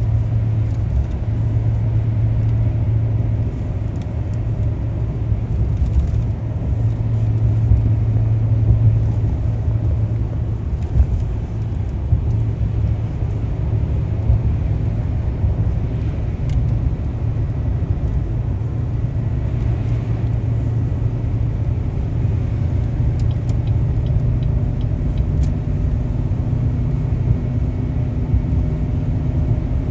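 Car driving on a road: a steady low rumble of engine and tyre noise.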